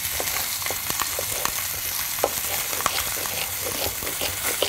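Lamb shanks sizzling as they sear in hot oil in a pot, a steady hiss, with a knife chopping celery on a wooden board in irregular knocks.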